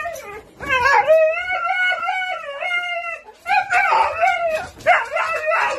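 Siberian husky howling and 'talking' in a wavering, drawn-out call, one long held stretch about a second in, then shorter, rougher yowls in the second half.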